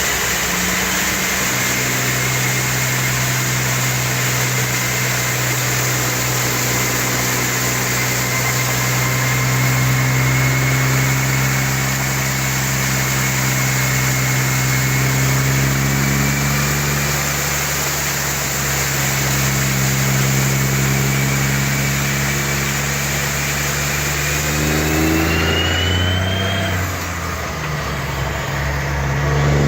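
An engine running steadily, its pitch drifting slowly up and down, with a thin high whine that rises near the end.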